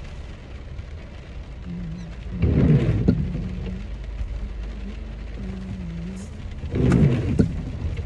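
Inside a car driving in the rain: a steady low road rumble, with two louder whooshing swells about four seconds apart and a faint wavering tone underneath.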